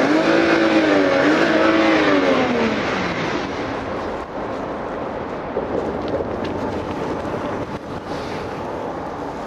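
BMW 528i's 3.0-litre inline-six heard at the tailpipe: the exhaust note rises and falls back over the first few seconds, then settles into a steady exhaust rush at idle. The exhaust is blowing heavy smoke from burning oil. The mechanic says this could be real oil consumption or a torn pressure-control valve in the valve cover letting oil into the intake.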